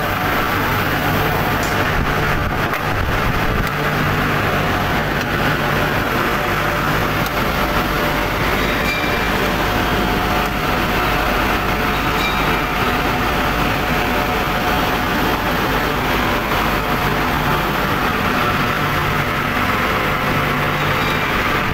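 Steady industrial machinery noise of a steel continuous-casting shop: an even, loud din with a low hum and a faint steady whine, unchanging throughout.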